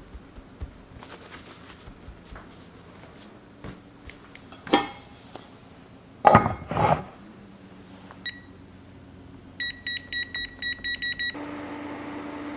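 Kitchen clatter, with two loud knocks of dishes or cookware, then a kitchen appliance's electronic control panel beeps once and then about nine times in quick succession, and the appliance starts running with a steady hum near the end.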